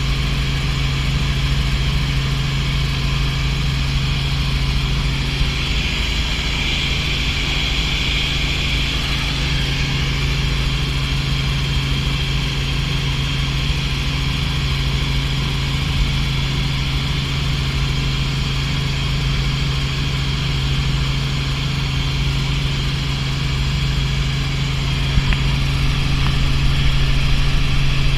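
Light helicopter in steady cruise heard from inside the cockpit: the engine and rotor make a constant low drone with a steady hiss above it, growing slightly louder near the end.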